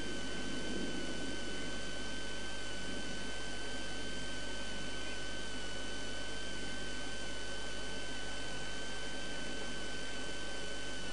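Steady hiss inside a stationary rally car's cabin, with a constant thin high-pitched whine over it.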